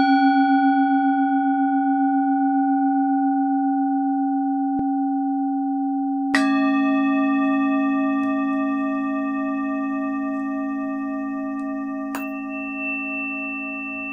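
Singing bowls struck and left to ring, a long tone with a slow wobble fading away. Struck again about six seconds in and once more near the end, each strike adding fresh ringing overtones.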